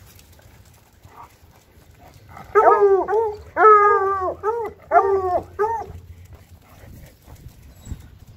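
Bluetick coonhound baying: a run of about six howls, each falling in pitch, starting about two and a half seconds in. The first two are the longest and loudest, and the last ones are shorter.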